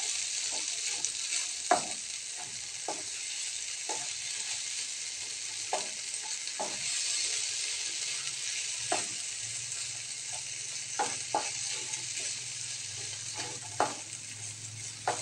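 Diced eggplant in tomato sauce sizzling in a nonstick frying pan while a wooden spatula stirs it, with irregular scrapes and taps of the spatula against the pan.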